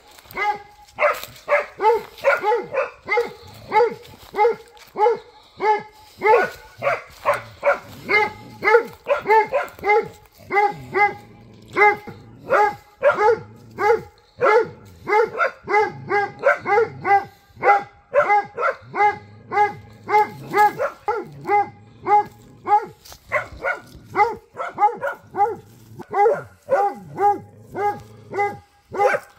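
Hunting dog baying at wild boar: rapid, insistent barking at about two or three barks a second, kept up almost without a break.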